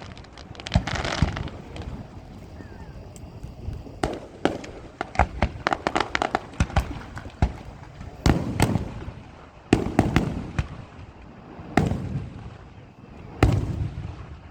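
Aerial fireworks display: shells bursting in single booms every second or two, with a quick run of crackling pops midway.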